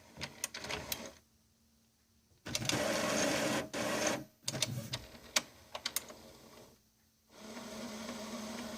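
The Epson WorkForce Pro WF-3720 inkjet printer's internal mechanism is working through its self-check and initialization after a cartridge change. It gives clicks, a couple of seconds of whirring motor, more clicks, and a steady hum near the end, with brief pauses between them.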